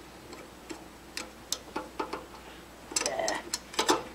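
Light clicks and clinks of a flat steel arbor wrench working the arbor nut of a table saw blade, the nut being snugged up by hand but not fully tightened. The clicks come a couple of times a second, with a quicker cluster about three seconds in as the wrench is lifted off.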